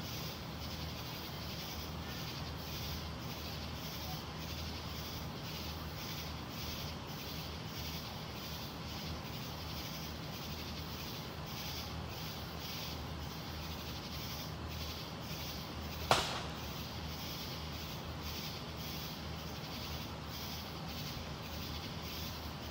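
Night insects chirping in a steady, evenly pulsing chorus over a low hum, broken once, about 16 seconds in, by a single sharp firework bang.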